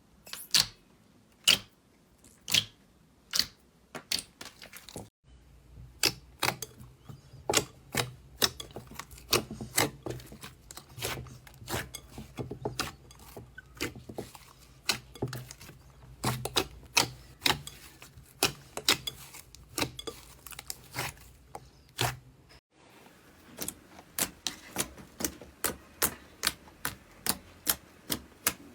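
Slime being pressed and worked by hand, giving a run of sharp, irregular clicks and pops a few times a second.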